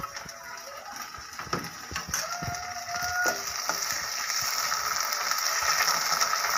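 A metal spatula scrapes and knocks against a metal kadai as chopped onions are stirred in hot mustard oil, over a frying sizzle that grows louder. There is a brief steady whine a little past the middle.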